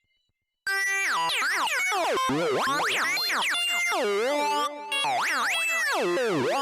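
Synthesized robot-voice sound effect: electronic tones that zigzag rapidly up and down in pitch, starting about half a second in, with one brief break shortly before the end.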